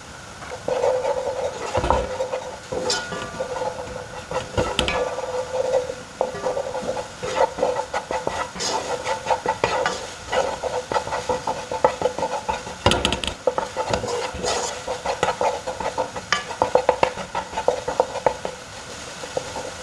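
A spoon or spatula stirring and scraping a pan in quick, irregular strokes, with green paste and masala frying and sizzling in clarified butter.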